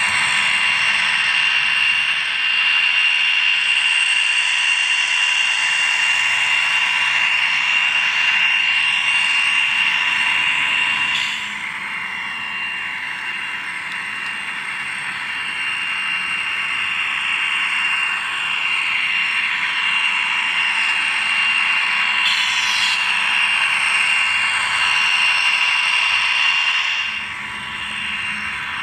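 HO-scale Atlas GP40 model diesel locomotive's DCC sound decoder playing its diesel prime mover through the model's small onboard speaker as it runs, with a steady high whine over the engine sound. It drops somewhat quieter around the middle and again near the end.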